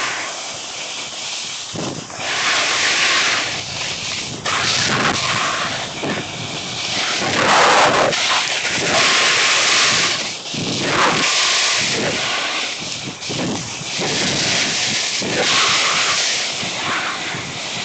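Snowboard sliding and scraping over snow during a run, mixed with wind rushing over the microphone; the hiss swells and fades over and over.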